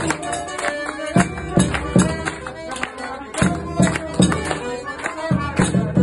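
Forró played live: an accordion carries the melody over regular strokes of a zabumba bass drum, about two a second, with hand clapping. The drum drops out for about a second near the middle.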